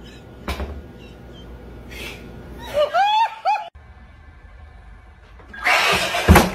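A woman laughing in short high-pitched bursts. After a cut, a man gives a loud startled yell about six seconds in as he is jump-scared, ending in a short thump.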